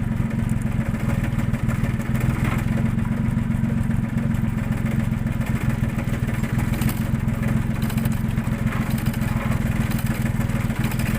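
A machine running with a steady low hum, with faint scattered clicks over it.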